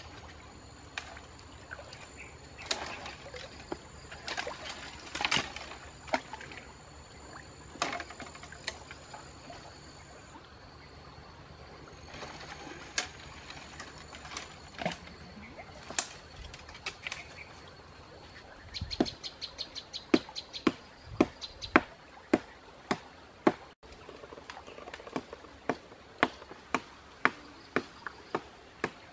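Branches cracking and rustling as a man clambers through a dead tree. In the second half these give way to sharp chopping strikes on wood, about two a second. A steady high whine runs through the first half.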